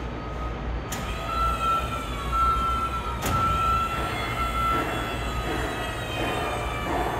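Battery-electric Genie Z-34/22N boom lift working its boom: a steady high electric-motor and hydraulic-pump whine over a low hum, with higher tones that slide slightly down in pitch. Sharp clicks come about a second in and again about three seconds in.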